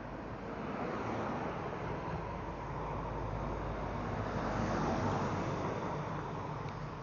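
A road vehicle passing close by: engine hum and tyre noise swell from about a second in, are loudest near five seconds, then ease off.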